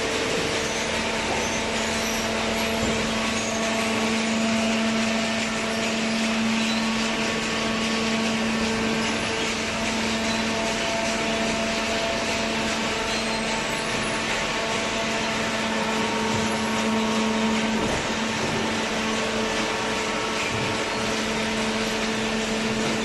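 Hydraulic baler's electric motor and pump running with a steady hum and whine, with several fixed tones and no change in speed.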